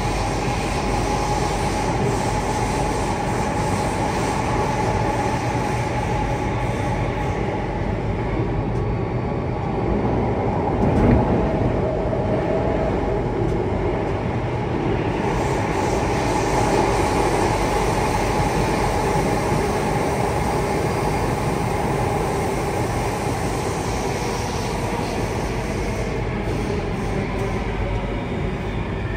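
Alstom C830 metro train running through a tunnel, heard inside the carriage: a steady rumble of wheels on rail with a faint steady tone over it. A brief thump comes about eleven seconds in.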